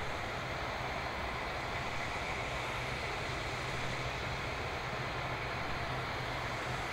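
Steady whine and rush of a jet airliner's turbines on the ground, an Airbus A350-900, holding an even level.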